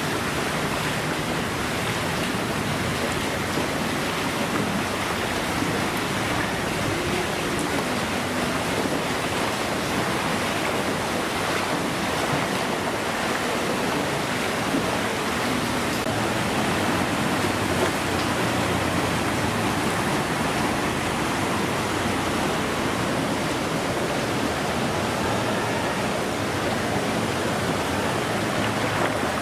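Floodwater rushing steadily: an even wash of water noise with no breaks.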